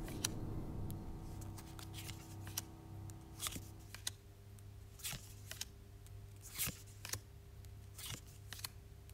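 Trading cards slid off a hand-held stack one at a time, each giving a short sharp papery flick, about ten in all at roughly one a second.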